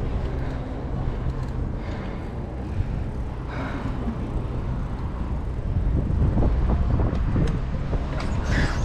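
Bicycle rolling along a paved cycle path: a steady low rumble of tyres and wind, with knocks and rattles growing louder over the last few seconds as the bike crosses rougher paving and pulls up.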